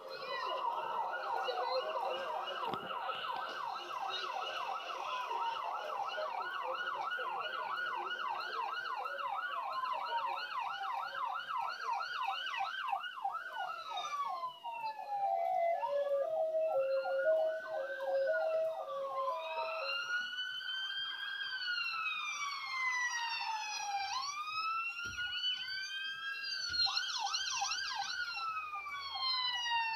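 Emergency vehicle sirens. A fast yelp runs for about the first half, with a slower wail overlapping it. Just past the middle comes a two-note hi-lo for a few seconds, then slow wails rising and falling, with two sirens overlapping near the end.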